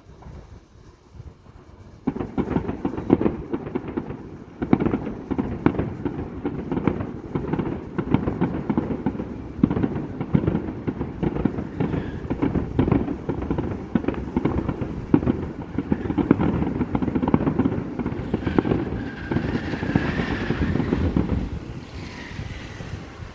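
Aerial fireworks going off in a rapid barrage: about two seconds in, a dense run of overlapping booming bursts and crackle begins, keeping up for nearly twenty seconds before easing off near the end.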